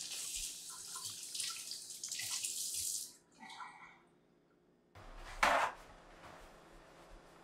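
Kitchen tap running into a sink, shut off about three seconds in. A short burst of noise comes a couple of seconds later.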